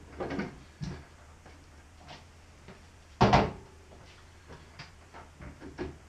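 Blender lid being handled and pressed onto the blender jug: a few short knocks and clatters, the loudest about three seconds in.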